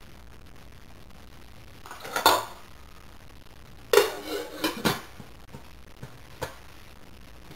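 Stainless steel pot lid and saucepan clanking together. A single clank about two seconds in, then a louder ringing clatter of metal on metal with a couple of quick rattles, as the lid is set onto the saucepan, and one more short clank near the end.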